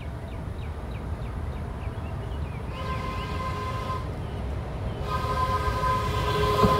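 A mechanical railroad crossing bell rings at about three strikes a second while a DART light-rail train approaches and sounds its horn: a short blast about three seconds in, then a longer one from about five seconds in. The low rumble of the train grows louder throughout.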